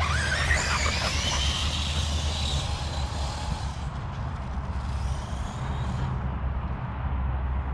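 Electric whine of an ARRMA Notorious RC truck's 1250kv brushless motor, running on a 4S lipo, rising in pitch as the truck accelerates away, then fading after about four seconds. A steady low rumble runs underneath.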